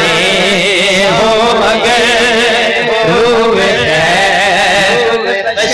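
A man singing a naat: one voice holding long, wavering melodic runs without a break.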